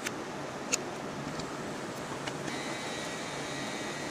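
Steady hiss of room noise with a few short sharp clicks and a faint high whine that fades in and out.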